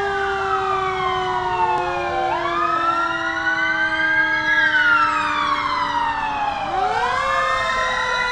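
Several police sirens wailing together, their pitches rising and falling slowly and out of step with one another.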